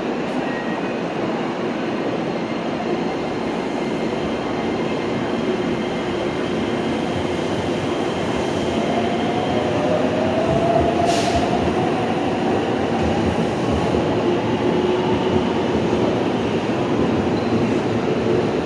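Electric commuter train running alongside the station platform, a steady rumble with a motor whine that rises in pitch in the middle and a brief hiss about eleven seconds in.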